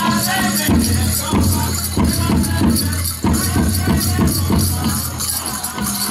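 Powwow drum group beating a large shared drum and singing a chicken dance song, with the dancers' leg bells jingling over it. The drumming breaks off for a moment about three seconds in, then resumes.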